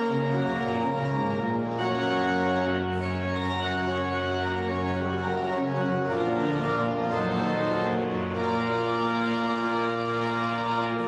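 Church organ playing the postlude: full sustained chords over long-held bass notes, the chords moving every second or two.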